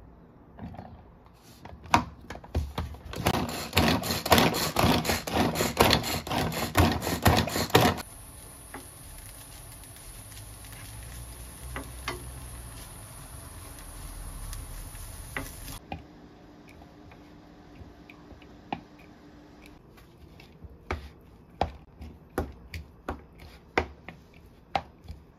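A mini vegetable chopper clatters loudly for about six seconds as it minces pickled vegetables. Then comes the faint steady sizzle of a filling stir-frying in a frying pan. Near the end a plastic spatula clicks and scrapes against a plastic mixing bowl.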